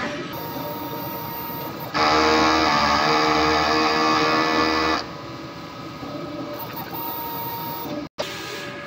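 SMART four-head large-format printer running its head-cleaning cycle: a steady mechanical hum, with a louder whine of several steady tones from the cleaning motors starting abruptly about two seconds in and stopping about three seconds later.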